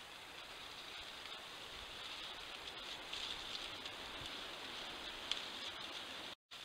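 Steady, fairly high hiss of outdoor night ambience with faint scattered ticks and crackles and one sharper click. It cuts out for a moment near the end.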